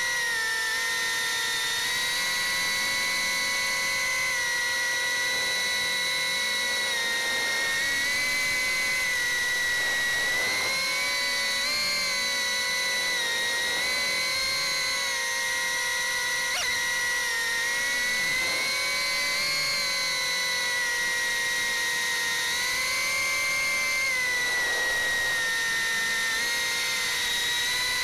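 A Beta75X 2S whoop quadcopter's four 11,000 KV brushless motors and 40 mm four-blade props whining steadily in flight, picked up by the onboard Caddx Turtle V2 camera's microphone. The pitch wavers slightly up and down.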